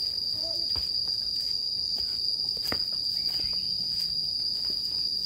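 A steady, loud, high-pitched insect drone from the surrounding forest, with a few soft footsteps on the trail.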